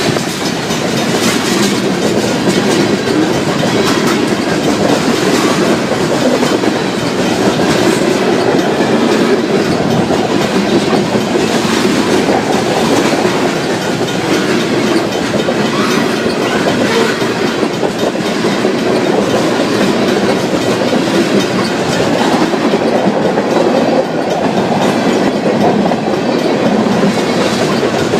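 Train cars rolling steadily through a railroad crossing, wheels clacking over the rail joints.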